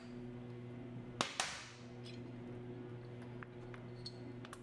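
Two sharp metallic clacks a fraction of a second apart, about a second in, with a short ring after the second: a torque wrench and spark plug socket being handled at the engine. A faint steady hum and a few light ticks run underneath.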